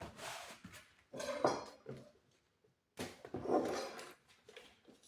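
Clattering and scraping of metal parts being handled, in three short bursts, during work on a metal cable tray.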